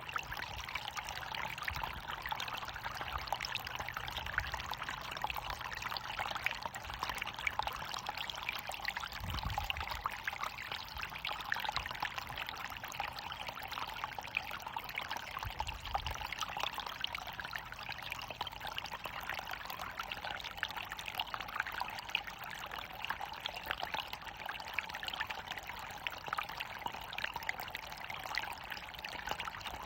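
Water running and splashing steadily over a small waterfall: an even, unbroken rush.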